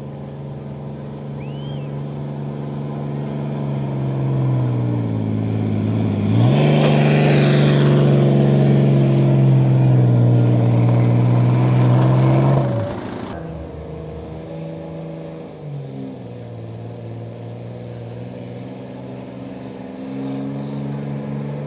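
Pickup truck engine at full throttle pulling a weight sled: its pitch sags under the load, then jumps up about six seconds in and holds high, loudest, for about six seconds before dropping off. A second pickup's engine then idles with a couple of short revs and climbs again near the end.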